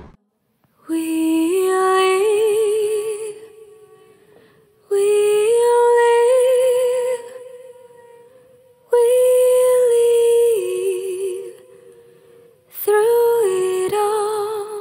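Background music: a wordless hummed or sung melody with vibrato, in four phrases that start about every four seconds and fade between them.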